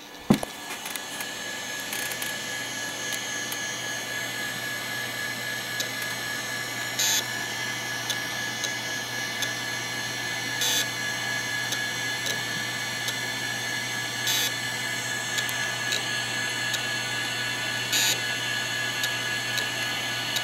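Quantum Bigfoot CY 2 GB 5.25-inch hard drive running during a full format, heard close up: a steady whine with a high tone, and short louder bursts of noise about every three and a half seconds. A single thump comes just after the start.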